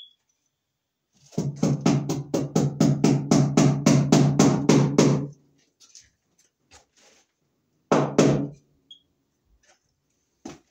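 Old electric fire alarm bell ringing: a loud rattling ring with a steady hum and rapidly repeated strokes for about four seconds, then a short second burst about eight seconds in.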